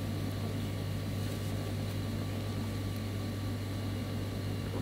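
Room tone: a steady low hum over a faint even hiss, with no distinct sound event.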